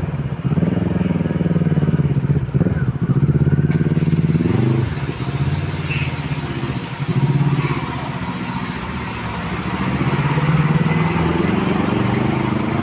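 Vehicle engines running and revving, their pitch rising and falling several times.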